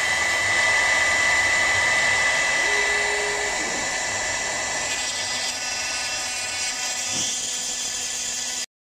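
CNC router spindle running at high speed, a steady high-pitched whine as its small bit routes into a wooden sign board. The sound cuts off suddenly near the end.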